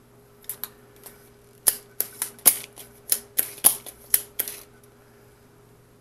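Irregular run of about a dozen sharp clicks and taps of hard tools being handled at a soldering bench, over a faint steady hum.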